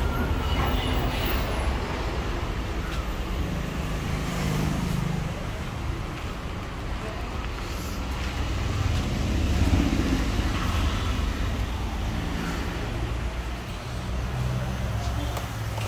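Road traffic going by: a steady low rumble of passing vehicles that swells about ten seconds in.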